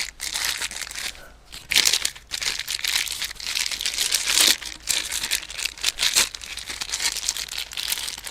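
Crinkling and rustling of packaging with irregular small clicks and knocks, as parts of an electric pressure washer are handled during assembly.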